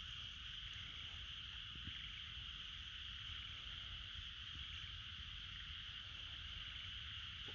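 Outdoor ambience: a steady high hiss over a low rumble of wind on the microphone.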